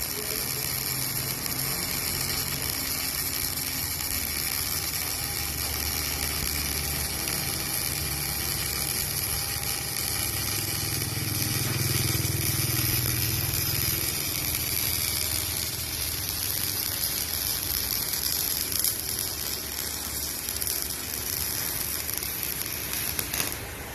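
Electric welding arc crackling and hissing steadily while a weld bead is run, with a low electrical hum underneath.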